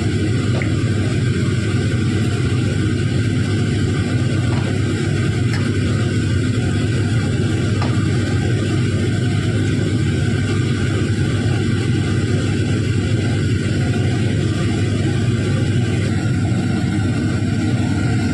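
Steady, loud mechanical drone with hiss, unchanging throughout, like a motor or fan running. A few faint taps sound over it.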